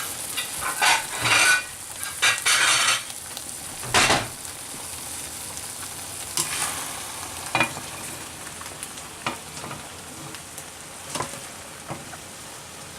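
Stir fry of ramen noodles, chicken and green beans sizzling in a hot wok while a utensil stirs and scoops it out. Several scraping strokes come in the first three seconds and a sharp knock about four seconds in, then a steady sizzle with occasional light clicks.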